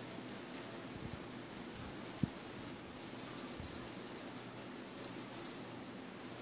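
Insect chirping: a fast, steady trill of high-pitched pulses, with a short break about three seconds in.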